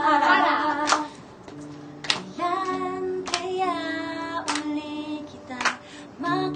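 Group of women singing together to a strummed acoustic guitar, with sharp hand claps on the beat about once every second. The voices drop back briefly about a second in.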